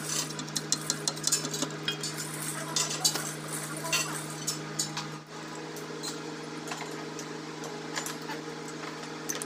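Metal clinking and scraping as the steel front plate is worked loose and lifted off a Kubota M9000 tractor engine block by hand, the clinks coming thick for about five seconds and more sparsely after. A steady low hum runs underneath.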